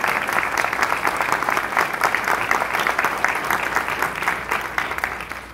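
Audience applauding: many hands clapping densely, dying away near the end.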